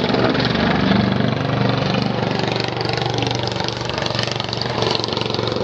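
Kart engine running with a steady note.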